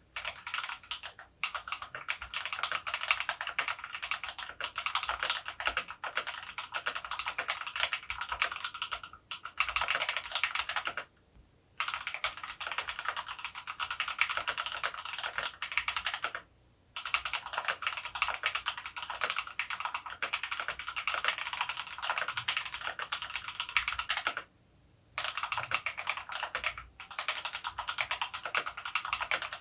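Steady typing on a GMMK Pro mechanical keyboard with lubed Creamsicle switches, PBT keycaps and a polycarbonate plate: dense runs of soft key clacks broken by a few short pauses of about a second.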